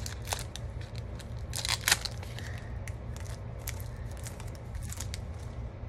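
Foil Pokémon booster pack wrapper crinkling and being torn open by hand: scattered crackles, with a louder cluster a little under two seconds in.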